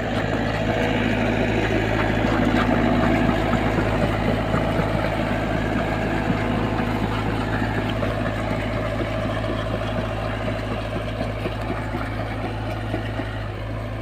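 SDLG compact crawler excavator's diesel engine running steadily as the machine works in the mud, a constant low engine hum with light clatter over it.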